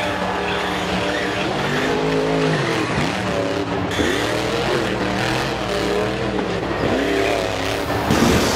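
Mini RC monster truck's electric motor whining up and down in pitch again and again with the throttle, about once a second, with its tyres rushing over carpet as it drives around ramps.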